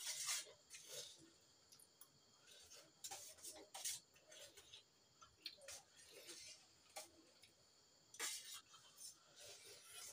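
Metal spoons clicking and scraping lightly against steel plates as two people eat, in scattered faint clicks.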